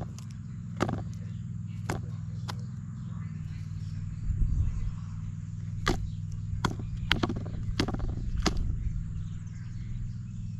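Australian magpie's beak pecking into a plastic tray of mealworms and bran, making sharp separate clicks every second or so, several close together in the second half, over a steady low hum.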